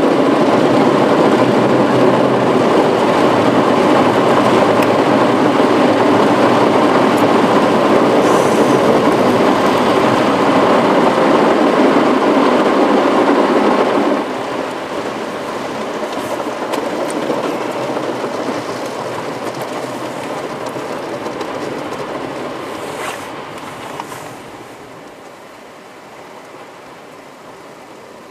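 Automatic gantry car wash machine washing the car, heard from inside the car: a loud, steady rush of water spraying over the body and windshield. It drops sharply about halfway through and fades again near the end to a quieter hiss.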